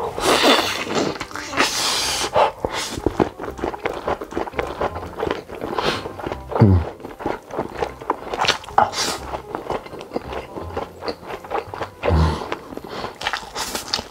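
A person slurping up big mouthfuls of spicy instant noodles, with loud wet slurps in the first two seconds, then chewing and lip-smacking. Two short falling swoops come about halfway and near the end, with background music underneath.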